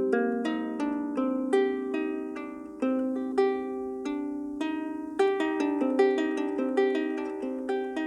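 Double diatonic harp being plucked in a free improvisation: a run of ringing notes, a few a second, each sounding on under the next.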